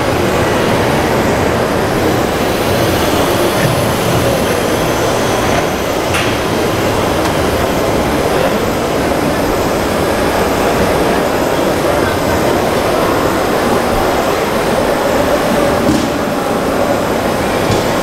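Steady, loud din of a crowded exhibition hall.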